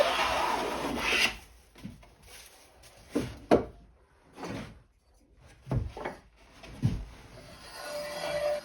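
A hand tool scraping along wood for about a second, then about five separate hard wooden knocks and clacks as wooden workpieces are handled and set against each other. Soft music begins near the end.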